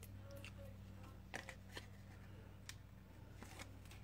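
Faint rustles and a few light ticks of paper being handled, as the backing is worked off double-sided tissue tape, over a steady low hum.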